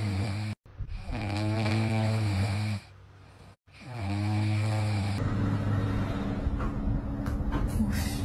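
French bulldog puppies snoring in their sleep: three long, even snores with a steady pitch. A different, steadier sound takes over for the last three seconds.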